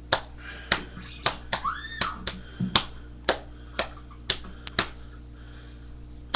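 A series of sharp clicks or snaps, unevenly spaced at roughly two a second, over a steady low hum.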